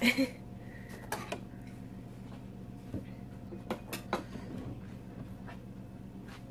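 Light clatter of kitchen utensils and dishes being handled: a short burst right at the start, then scattered sharp clicks and knocks, several between about three and four seconds in, over a steady low hum.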